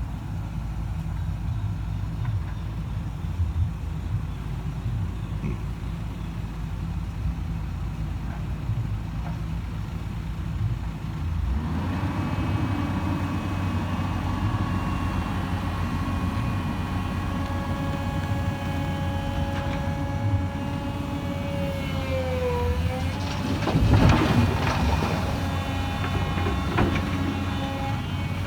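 Hyundai Robex 220-9SH excavator's diesel engine running at low speed, then picking up about a third of the way in with a steady hydraulic whine as the arm and bucket work. Near the end a loud burst of clatter and thuds, the loudest moment, fitting dirt being dropped into the dump truck's bed.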